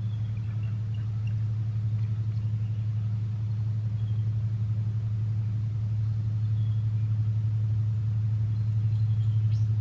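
A steady low motor drone with a fast, even pulsing, holding unchanged throughout.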